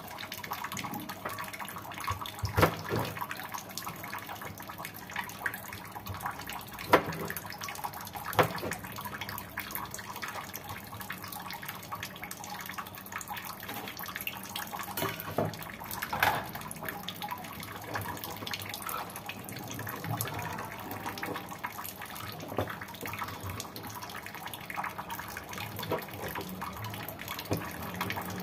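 Kitchen knife knocking on a plastic cutting board now and then as long beans are cut, a few sharp knocks standing out about 3 and 7 seconds in, over a steady background hiss.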